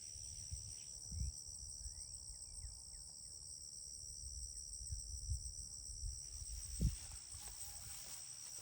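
Steady high-pitched chirring of insects such as crickets, with a few faint short chirps and scattered low thumps, a sharper one about seven seconds in.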